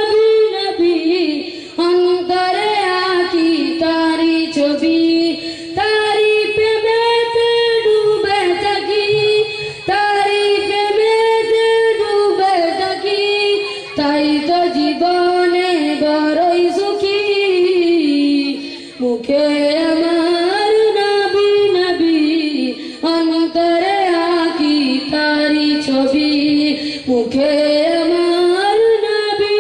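A boy's high voice singing an Islamic devotional ghazal solo into a microphone, in wavering melodic phrases of a few seconds each with short breaths between them.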